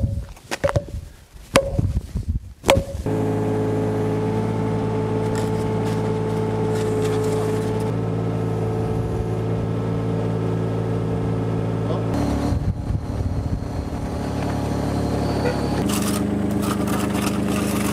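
A few sharp blows of a big rubber mallet on a cut-stone basin element, then a Takeuchi TB016 mini excavator's diesel engine running steadily, its note shifting twice later on as the arm works.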